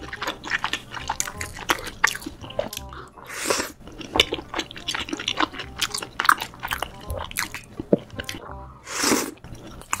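Close-miked ASMR chewing of saucy tteokbokki rice cakes and fried cheese balls: moist smacking and sticky mouth clicks. Two short breathy rushes come about three and a half and nine seconds in.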